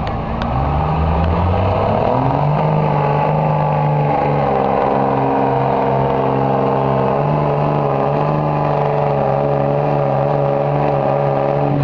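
Diesel pickup truck engine at full throttle in a truck pull, dragging the weighted sled: revs climb over the first couple of seconds, then hold high and steady under heavy load.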